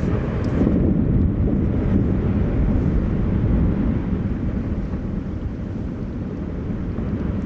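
Deep rumble of ice collapsing at the front of the Brøggerbreen glacier. It swells to its loudest about a second in, holds for a few seconds, then slowly eases off.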